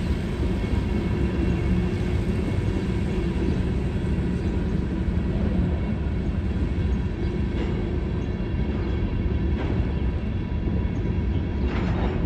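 Freight train of covered hopper cars rolling past at a grade crossing: a steady rumble of steel wheels on the rails, with a few faint clacks in the second half.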